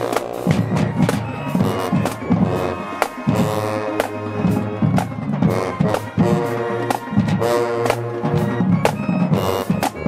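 A marching band playing: sousaphones and other brass hold notes over a drumline of snare and bass drums, with frequent sharp drum strokes.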